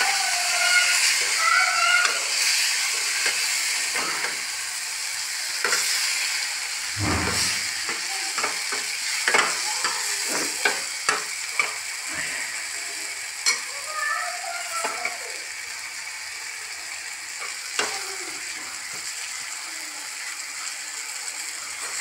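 A steel ladle scrapes and knocks against a steel kadhai as chopped vegetables are stirred, with the frying food sizzling and the kitchen chimney's fan running steadily. The knocks come thickest in the middle of the stretch.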